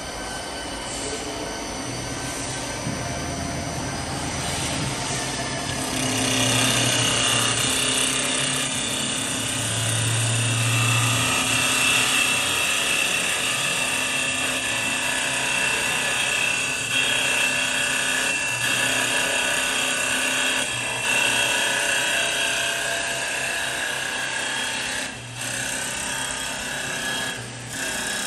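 CNC wood-turning lathe spinning a wooden blank as its cutter turns it round for a table leg: a steady machine whine with the hiss of wood being cut. It grows louder about six seconds in and dips briefly twice near the end.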